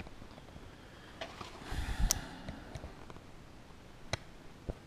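Faint handling noises: a few light clicks and taps, with a soft thump about two seconds in.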